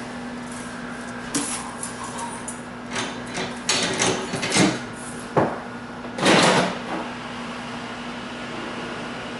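Handling noises at a service counter: a scatter of clicks and knocks, then a short, louder rustling burst about two-thirds of the way in, over a steady electrical hum.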